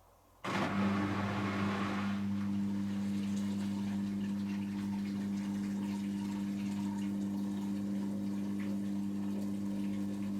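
Hotpoint Extra WMXTF742K washing machine sending water through: a steady electrical hum with rushing water. It starts suddenly about half a second in, with the water rush strongest at first.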